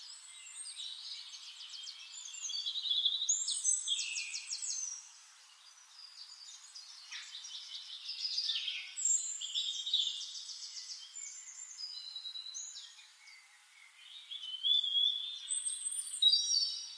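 Several songbirds singing and calling over one another in rapid trills, chirps and sliding whistles. The singing swells loudest about three to four seconds in and again near the end.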